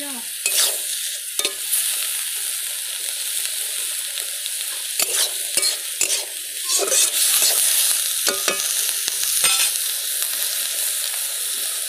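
Small prawns and tomatoes frying in oil in a steel kadai, a steady sizzle, with a steel spatula scraping and clicking against the pan as they are stirred.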